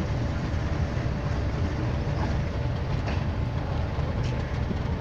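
Pakistan Railways passenger coaches rolling past as a departing train pulls out: a steady low rumble of wheels on the rails with a few faint clicks.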